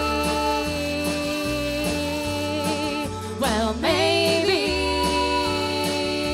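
Live country band playing an instrumental break: guitars and bass under a sustained melody line, with one swooping slide in pitch a little past halfway.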